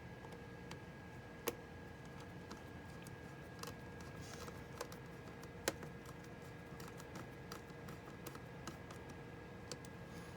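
Faint, scattered small clicks and taps of plastic laptop parts being handled and fitted back together, with two sharper clicks, about a second and a half in and near the middle. A faint steady hum underneath.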